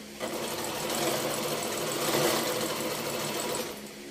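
Janome N3000 sewing machine running steadily as it stitches a decorative pattern. It starts up just after the start and stops near the end.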